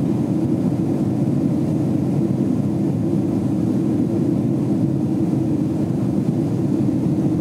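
Steady low drone of a Boeing 767's jet engines and airflow heard inside the cabin from a window seat beside the wing, with the aircraft climbing out.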